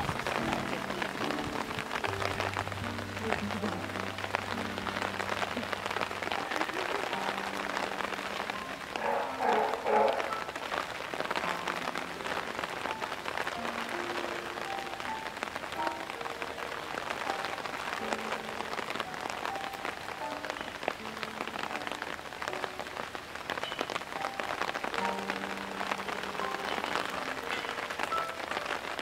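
Heavy rain falling on pool water and rock, a steady hiss, with soft background music of held notes over it. A brief louder burst comes about nine seconds in.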